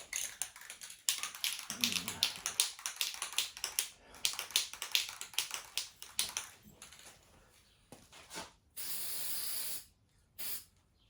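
Aerosol spray-paint can shaken hard, its mixing ball rattling rapidly for several seconds, then sprayed in a steady hiss of about a second followed by a shorter burst.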